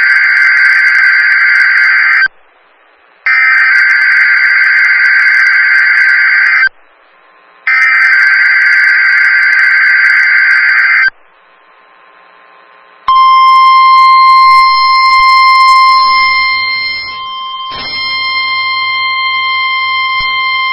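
NOAA Weather Radio test signal: three loud bursts of warbling, buzzing digital header data (the SAME code), each about three seconds long with a second of silence between. About 13 seconds in, the steady, shrill single-pitch warning alarm tone starts and holds to the end.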